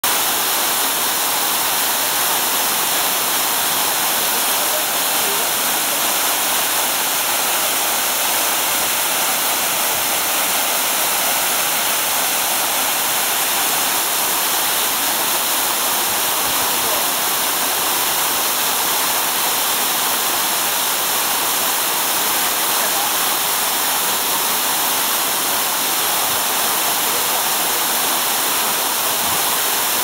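Waterfall plunging down a rock cliff: a steady, unbroken rush of falling water, mostly high hiss with little low rumble.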